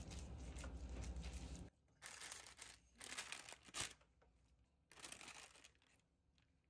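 Faint crinkling and rustling of parchment paper and gloved hands handling crab cake mixture, in a few short bursts with near silence between. A faint low hum runs through the first couple of seconds.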